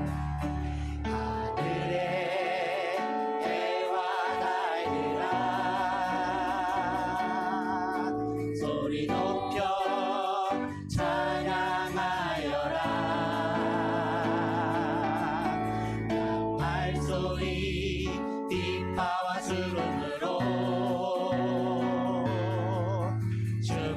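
A Christian worship song sung by voices over instrumental accompaniment, with vibrato on the held notes.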